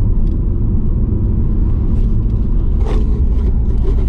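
In-cabin rumble of a BMW E34 525i's straight-six engine and tyres while driving, steady, with a brief click about three seconds in.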